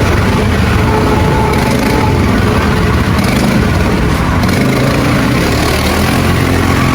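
ATV quad bike engine running steadily while riding.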